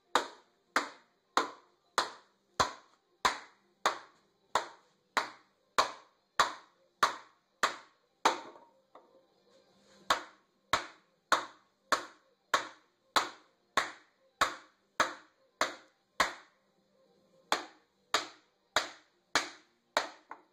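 Hammer blows on a wooden block driving a freezer-chilled steel cylinder sleeve down into the bore of a Ford 172 cubic inch four-cylinder diesel block. The blows are sharp and evenly paced, about three every two seconds, with two short pauses.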